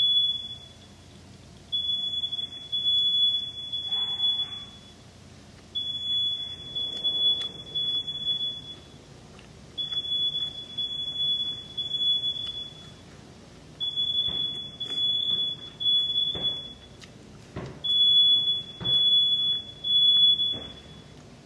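Smoke alarm going off in the three-beep evacuation pattern: a loud, steady, high-pitched beep sounds three times in a row, then pauses about a second, repeating about every four seconds. A few soft knocks sound beneath it.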